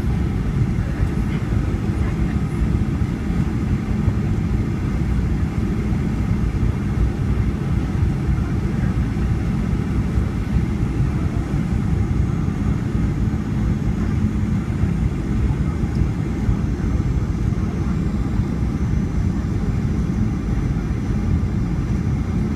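Inside the cabin of a Boeing 737-800 on final approach: the steady low noise of its CFM56-7B engine and the airflow, heard from a window seat over the wing.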